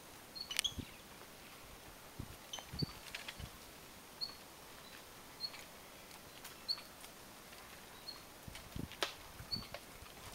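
Faint outdoor ambience with a short, high chirping call repeated roughly once a second, and a few scattered clicks and low knocks.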